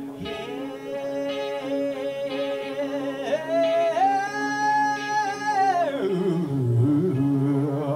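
Live band music: a voice sings long, held notes, climbing and holding a high note, then sliding down about three-quarters of the way through, over a steady low sustained drone.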